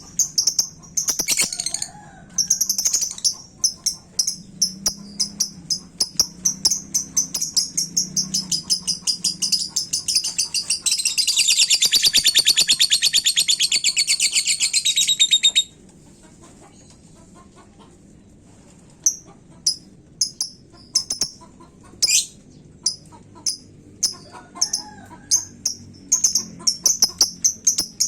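Lovebird chirping in quick, high-pitched notes, breaking near the middle into a long, very rapid chattering trill (the lovebird's "ngekek") of about five seconds. After a short pause it picks up with scattered chirps again.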